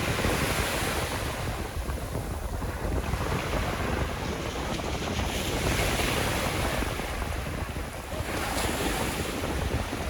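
Sea waves washing onto the shore, the hiss of surf swelling and fading every few seconds, with wind noise on the microphone underneath.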